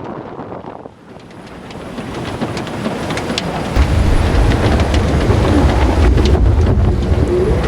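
Wind and rushing water on the deck of a Volvo 65 racing yacht under sail, building from about a second in to a loud, steady low rumble with a few sharp clicks along the way.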